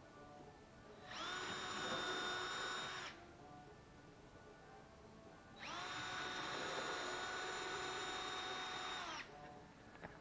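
Cordless drill run twice, first for about two seconds, then after a short pause for about three and a half seconds. Each run is a steady motor whine that winds up at the start and winds down at the end.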